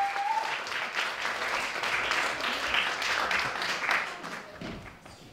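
Audience applauding. A brief rising high call rings out over the clapping at the start, and the applause dies away near the end.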